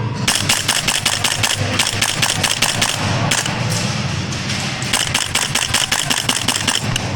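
Airsoft rifles firing in rapid bursts: strings of sharp cracks in quick succession, with short pauses about three seconds in and again about four and a half seconds in, echoing in a large indoor hall.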